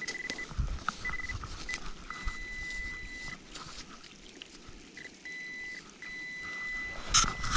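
Handheld metal-detecting pinpointer sounding a steady high tone in on-and-off stretches, some a fraction of a second and some over a second long, as it is probed through sand over a buried target. Gritty scraping and clicks of the probe in the sand run under it, with a couple of louder scrapes near the end.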